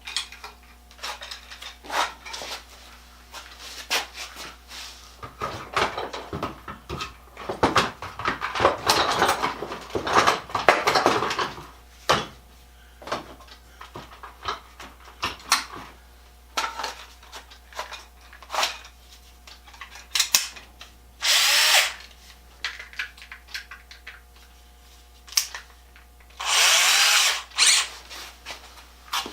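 Power drill boring holes in the wooden base of a tool box for the casters: one long rough stretch of drilling, then two short runs near the end, with clicks and knocks of hardware being handled between them.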